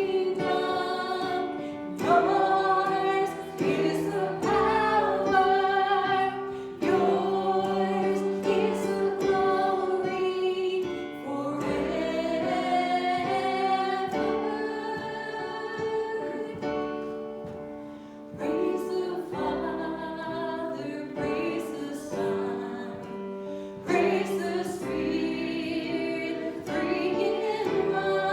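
Church worship music: a group of voices singing long held notes over instrumental accompaniment.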